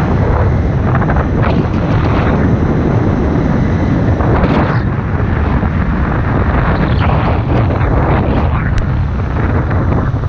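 Honda CBR motorcycle running at road speed, its engine note buried under heavy wind noise on the microphone.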